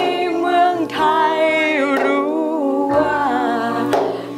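Women singing a melody together in phrases of about a second, over a steady held accompaniment.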